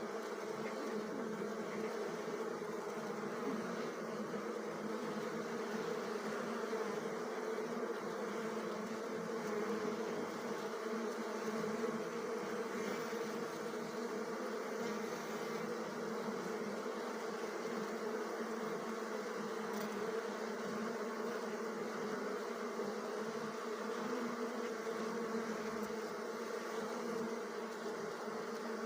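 Many honeybees buzzing together in a steady, unbroken hum.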